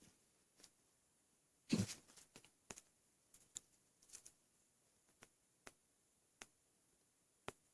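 Hiccups from a person bloated with a gallon of milk, made with the mouth mostly closed: a sharp hiccup about two seconds in and another near the end, with faint clicks in between.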